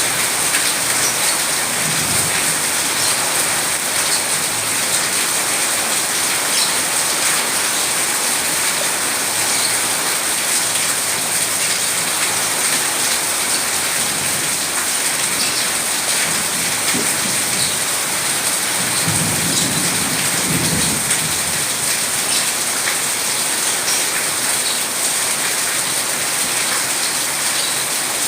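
Steady heavy rain falling, with low rolls of thunder: a short one about two seconds in and a longer one a little past the middle.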